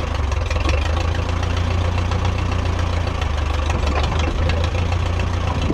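1957 Case 310 Terratrac crawler loader's engine idling steadily.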